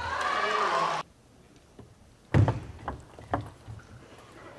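A second-long burst of cheering in the table tennis hall that cuts off abruptly at an edit. It is followed by a few sharp knocks of play at the table, the first of them loud.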